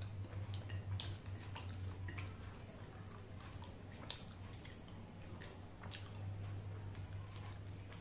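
Eating by hand: scattered short wet clicks and smacks from chewing and from fingers working somay and rice in a glass bowl. A steady low hum runs underneath.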